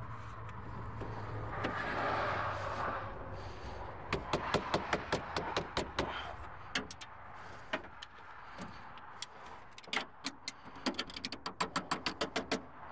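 Quick, irregular metallic clicking and clinking of a wrench working on car battery terminal clamps, in two runs of several clicks a second.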